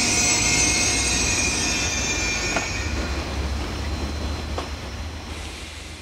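ICE 3 high-speed electric train running into the station. A high-pitched whine and squeal over a low rumble fades out about halfway, with two faint clicks, and the whole sound dies away.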